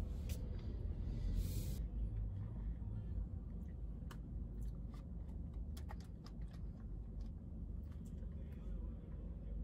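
Low steady rumble inside a car's cabin, with a hiss that stops about two seconds in; after that, faint scattered clicks.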